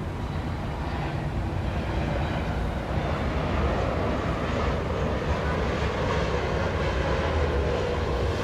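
Downtown city traffic: a steady low rumble of vehicle engines and tyres that grows a little louder after the first second or two and then holds.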